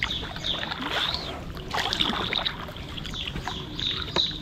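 Kayak paddles dipping into the water, with irregular splashes and drips, against a steady high chirping in the background.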